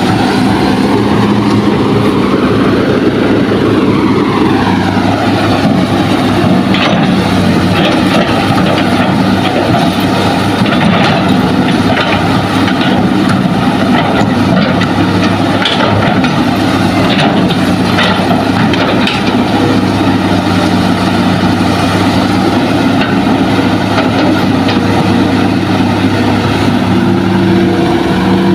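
Hitachi hydraulic excavator's diesel engine running steadily under load, with a hydraulic whine that rises and falls over the first few seconds and then holds level. Scattered sharp knocks come from the bucket working the soil.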